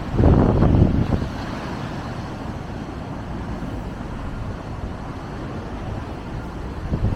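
Strong wind buffeting the camera's built-in microphone: a loud gust in the first second, then a steady low rumble.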